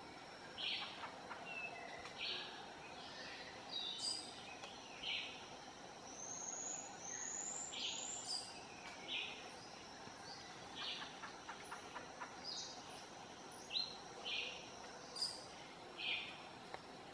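Geoffroy's spider monkeys calling: short high-pitched squeaks repeating roughly once a second, with a few quick sliding whinnies about halfway through, over a faint steady forest background.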